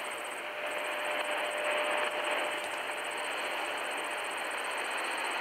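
Shortwave receiver hissing with static from a Tecsun PL-310ET portable radio's speaker while it is tuned between stations. A faint steady whistle sits in the hiss for the first couple of seconds, then fades.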